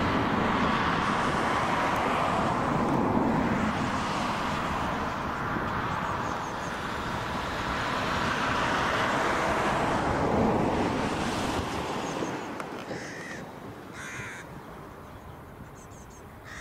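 Jet aircraft noise: a broad rushing that swells and then slowly fades over about twelve seconds, followed by a bird giving two short calls near the end.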